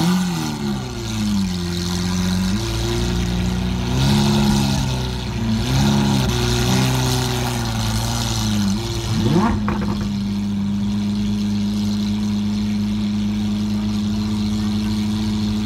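Lamborghini Aventador's V12 revved in repeated blips, its pitch rising and falling, then settling into a steady idle about ten seconds in.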